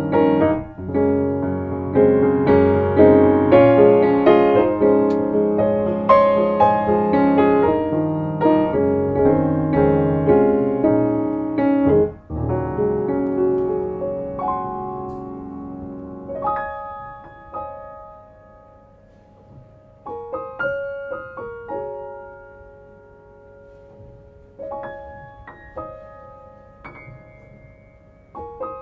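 Background solo piano music. It plays full chords for the first half, then thins out and gets quieter, with sparse single notes from about halfway through.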